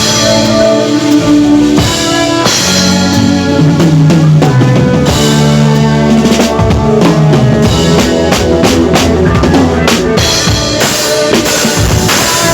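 Drum kit played over music with a bass line and held chords: kick drum, snare and rimshots in a steady groove.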